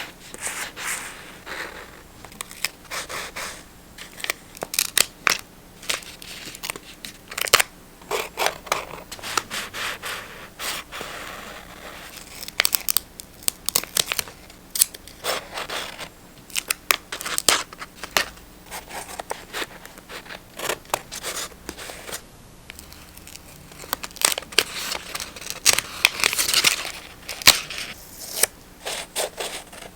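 Close-up sounds of paper being handled and cut: many short, sharp crisp clicks and snips, with stretches of rustling and tearing paper in between.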